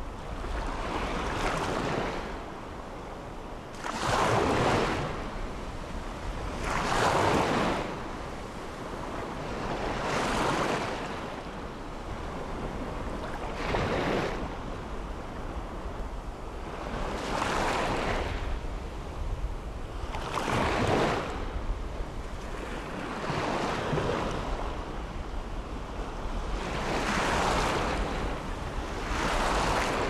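Small ocean waves breaking on a sandy beach, the surf swelling and washing back about every three seconds.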